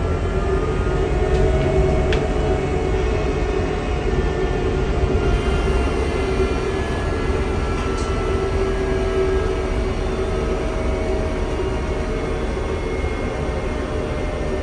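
Inside the passenger cabin of a UTTZ Gorozhanin trolleybus on battery-powered autonomous running: the electric traction drive whines in several tones that slowly drift in pitch with speed, over a steady low rumble of tyres and body.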